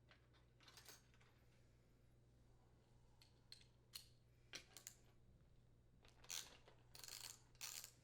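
Faint, irregular metal clicks and short scrapes as a 7/16-inch socket works loose the door handle's mounting nuts on a dishwasher door panel, more frequent and louder in the second half.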